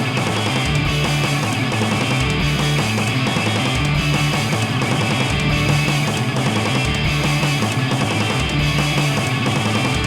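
Instrumental rock: distorted electric guitar and bass guitar played at a driving, steady beat in a home-multitracked cover.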